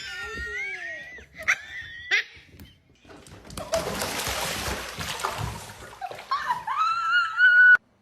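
A splashing rush of water lasting about two seconds, followed by a high, wavering cry that cuts off abruptly near the end.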